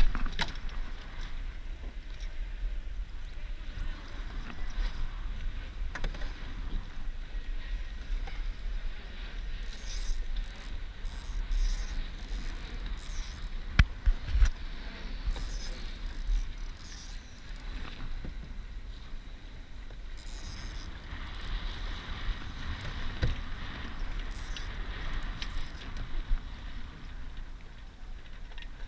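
Wind buffeting the microphone over water rushing and splashing along the hull of a Laser dinghy sailing fast in strong wind. A few sharp knocks are heard, the loudest about halfway through.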